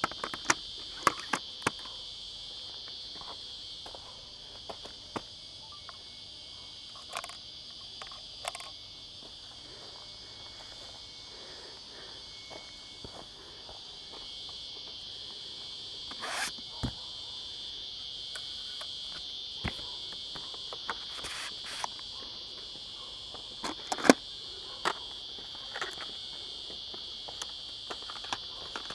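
Steady, high-pitched chorus of insects, with scattered short clicks and knocks over it.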